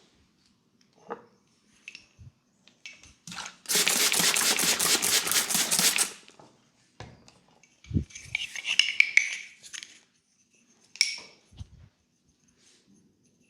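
Hands rubbing briskly over hair and scalp in a head massage, several quick strokes a second for about two seconds. Around it come scattered soft taps, a low thump, a burst of scratchy rustling and a sharp click near the end.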